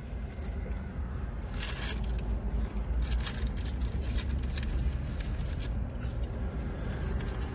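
Close-up eating sounds: crunchy fried food being bitten and chewed, with scattered crackles, over a low steady rumble inside a car.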